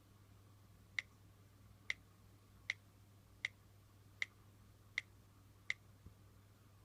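Seven sharp pops from an iPad Air 2's speaker, evenly spaced about three quarters of a second apart, with a weaker one just after, over a faint low hum: the speaker pop noise of the iPad Air 2.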